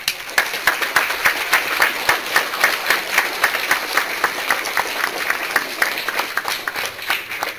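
A crowd of children and adults applauding, with sharp individual claps close by standing out from the dense clapping.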